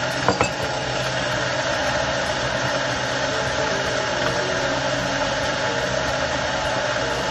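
Countertop blender running steadily as it purées the pesto, with a short knock a little after the start.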